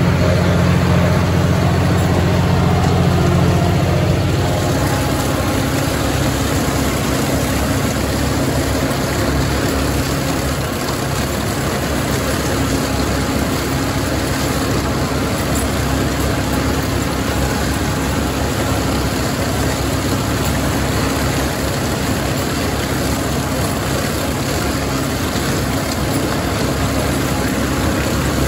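John Deere 5045E tractor's three-cylinder diesel engine running steadily under load while it drives a John Deere MX8 rotary cutter through tall weeds. About four seconds in, the deep, even engine tone gives way to a rougher, noisier sound.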